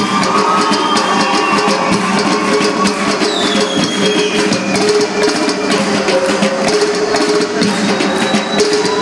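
Armenian dhols, double-headed drums, played by hand as a drum ensemble in a fast, dense, driving rhythm. Steady held tones run under the drumming.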